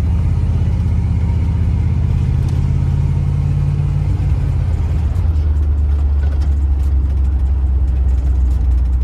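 1988 Chevrolet box Chevy driving, heard from inside the cabin: a steady low engine and road drone. About five seconds in, the drone changes and settles lower.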